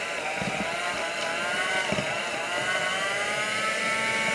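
Electric hand mixer running with its beaters in a bowl of cookie dough, a steady motor whine whose pitch wavers slightly as the beaters work the mix. There are a couple of low knocks, about half a second and two seconds in.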